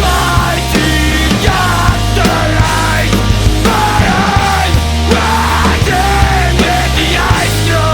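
Loud, fast punk hardcore recording: distorted electric guitars, bass and pounding drums at full band volume.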